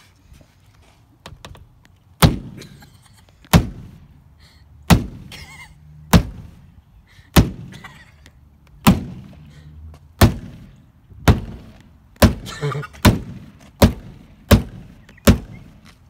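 Rubber mallet striking a car's door frame over and over: about fourteen separate heavy thunks, roughly one every second and a half at first, coming quicker near the end.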